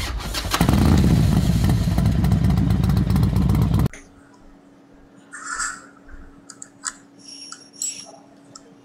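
Loud, dense motorcycle engine sound effect laid under a channel intro, cutting off abruptly about four seconds in. After it, quiet street ambience with a faint steady hum and a few light clicks and knocks.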